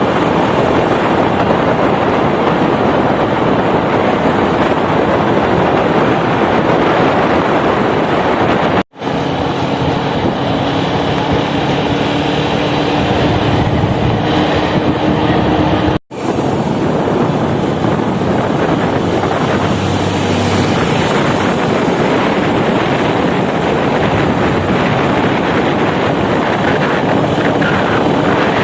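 Steady wind and road noise of a motorcycle on the move, with its engine running underneath, heard loud on the camera microphone. The sound drops out twice for an instant, about a third of the way through and just past halfway.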